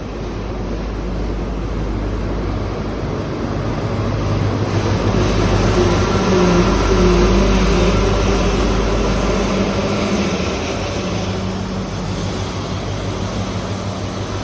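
ScotRail HST (Class 43 power car diesel engine) pulling into the station, a steady engine hum over a low rumble that grows to its loudest about seven seconds in and then eases off.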